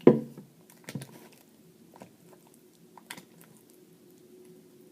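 Hands kneading sticky, still-forming glue slime: wet squishing with separate clicks and pops about once a second, after a louder thump at the very start.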